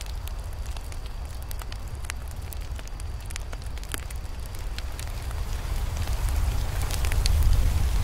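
Campfire burning: wood crackling and popping in scattered sharp snaps over a steady low rumble, the pops coming thicker and louder about seven seconds in.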